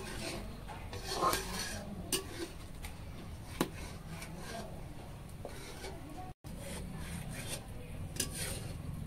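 Metal spatula scraping around a wok while food is stirred, with a few sharp clinks of metal on the pan.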